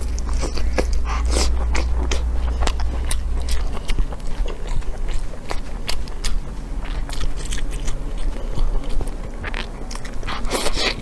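A person biting and chewing braised pig intestine close to the microphone: many irregular short clicks and smacks of chewing. A low steady hum lies underneath, stronger in the first few seconds.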